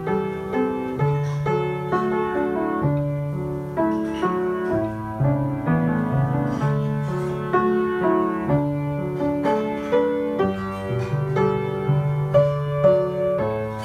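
Piano played with both hands: a hymn melody and chords in the right hand over held bass notes in the left.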